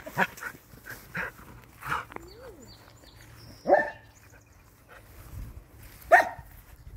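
A dog barking during play: one bark about halfway through and a louder, sharper one near the end, with a few short softer sounds early on.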